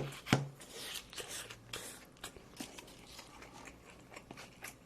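Close-miked chewing of food: two sharp crunchy bites near the start, then a run of small irregular crunches as the mouthful is chewed.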